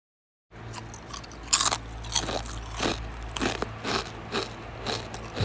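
Crispy fried kuboos (flatbread) snack being bitten and chewed: a series of sharp, dry crunches about every half second.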